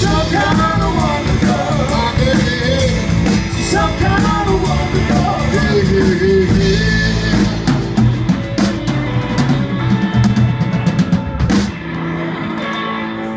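Live rock band playing through a PA: drum kit, electric guitar and keytar, with a wavering lead melody over the first half. The playing gets quieter near the end.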